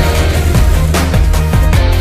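Loud background music with a heavy bass line and a steady drum beat.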